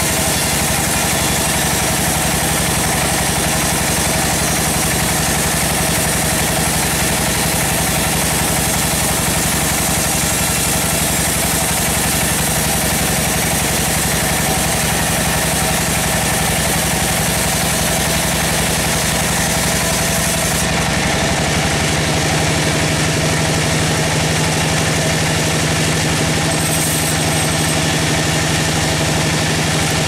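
Band sawmill running steadily as its blade cuts lengthwise through a large kenitu (star apple) log: a constant, loud mechanical drone with a steady low hum.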